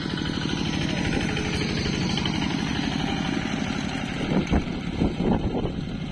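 Single-cylinder diesel engine of a two-wheel walking tractor pulling a trailer, chugging with a rapid even beat as it drives past and away. A few louder thumps come about four to five seconds in.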